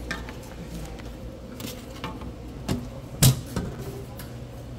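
A few scattered knocks and clicks of objects being handled, the loudest a sharp knock about three seconds in, over a low steady hum.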